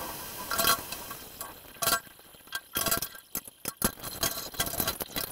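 Stainless-steel bowls and utensils clinking against each other and the steel sink as they are washed by hand under a running tap. Two ringing clinks in the first two seconds, then a run of quick light clatters.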